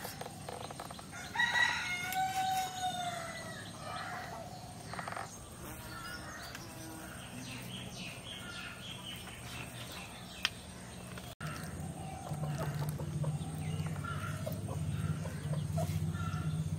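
A rooster crowing once, about a second and a half in, followed by scattered clucking and chirping from chickens. A steady low hum runs underneath and grows louder after about twelve seconds.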